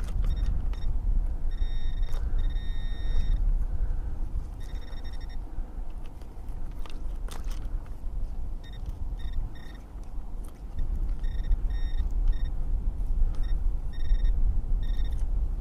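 Metal detector beeping repeatedly on a buried target, in short bursts of one steady high tone, some about a second long and some in quick clusters. Wind rumbles on the microphone throughout.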